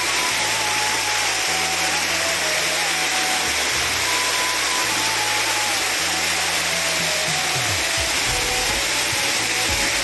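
Waterfall pouring over rock close by: a loud, steady rush of water. A background music track, a simple stepping melody over a bass line, plays over it.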